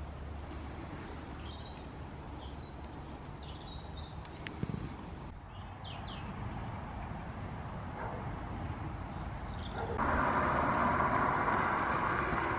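Outdoor ambience: a steady low hum of distant traffic, with small birds chirping now and then. About ten seconds in, a louder, even rushing noise takes over.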